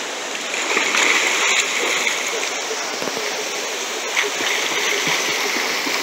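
River water running over rocks, with splashing as a person wades through a shallow pool.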